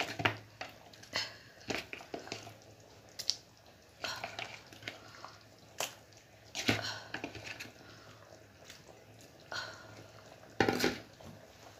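Metal spoon clinking and knocking against a clay cooking pot in scattered, irregular strikes, with a louder cluster near the end.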